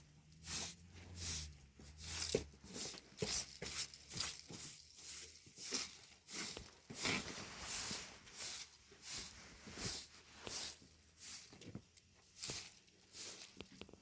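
Rhythmic scraping strokes, a little under two a second, each a short hiss.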